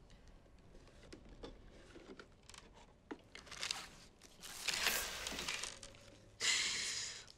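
Quiet handling of a box and paper: small knocks and light rustling as a stack of envelopes and photographs is taken out. About five seconds in there is a louder stretch of paper rustling, and near the end a louder, brief rushing sweep.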